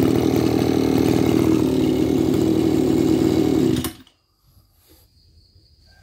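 Mitsubishi TL231 brush cutter's 23cc two-stroke engine running steadily at low speed, then cut off abruptly about four seconds in when it is switched off.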